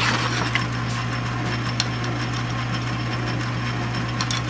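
South Bend 9-inch metal lathe running steadily with an aluminum bar spinning in the chuck. There is a brief rush of noise at the very start and a few sharp light ticks, once about two seconds in and again near the end.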